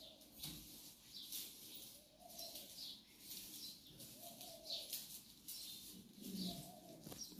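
Faint swishes of a soft grass broom sweeping a tiled floor, one stroke about every second.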